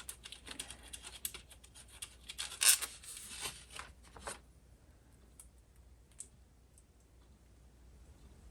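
Small clicks, scrapes and knocks of hand tools and metal parts being handled while a Rock-Ola jukebox's write-in read-out mechanism is taken apart. They are dense for about four seconds, with the loudest knock about three seconds in, and then thin out to a few scattered ticks.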